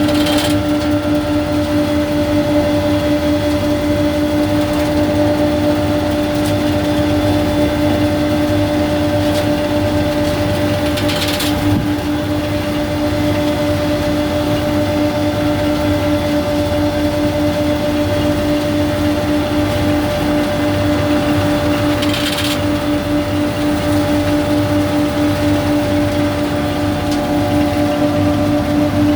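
Braud grape harvester running steadily under load: an engine rumble with a constant high whine, and a brief rush of noise three times, about every eleven seconds.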